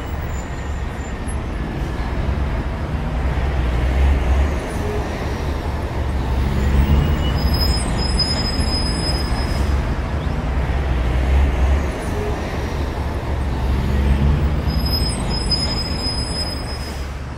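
Loud rushing, rumbling noise that swells and eases in slow waves every few seconds.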